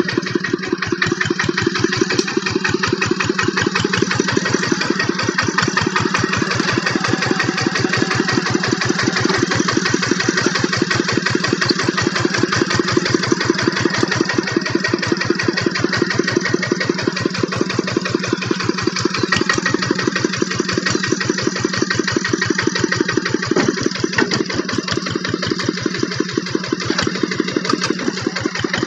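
Two-wheel walking tractor's single-cylinder diesel engine running steadily with evenly spaced chugging beats, under load as it drives the tractor through mud.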